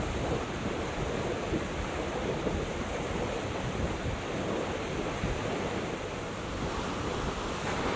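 Steady wind buffeting the microphone over choppy water, with a constant rush of water underneath.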